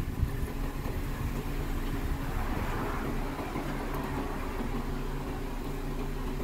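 Suzuki Swift's engine idling steadily as it waits to pull away from the kerb.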